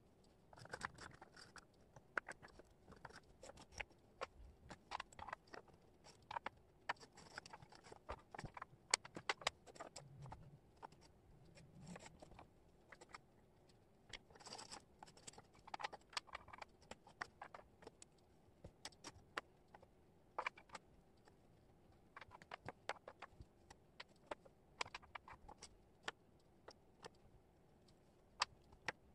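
Wooden jigsaw puzzle pieces clicking and tapping as they are picked up, shuffled and set down on a cork board: many quick, irregular light clicks.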